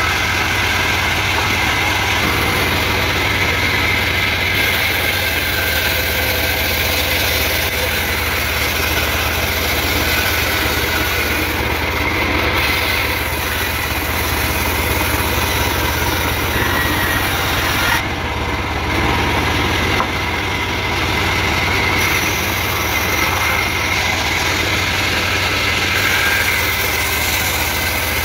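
Band sawmill running steadily, its blade cutting through trembesi (rain tree) timber: a continuous machine drone with an even hiss of the blade in the wood.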